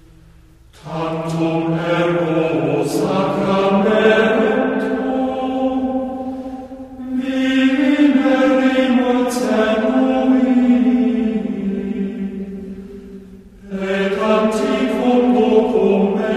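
Background music: a choir chanting sacred Latin chant in long, held phrases, coming in about a second in, with short breaks between phrases near the middle and near the end.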